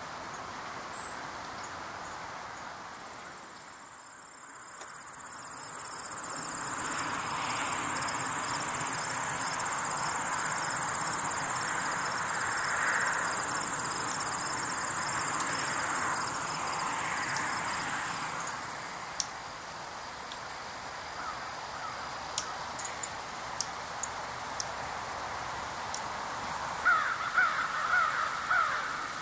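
Woodland ambience: a steady high-pitched buzz over a broad rushing sound for about fifteen seconds, then a few sharp clicks, and a crow cawing several times in quick succession near the end.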